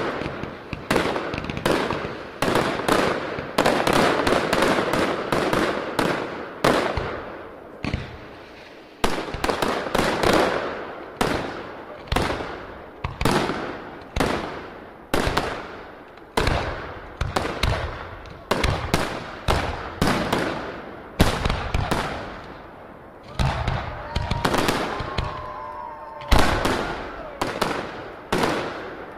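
Aerial fireworks display firing brocade shells: a rapid, uneven run of sharp shell bursts, about one to two a second and packed densest in the first few seconds, each report trailing off into a crackling echo.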